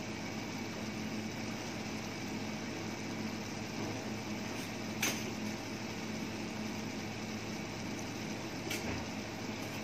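Steady mechanical hum, with a short click about five seconds in and a fainter one near the end.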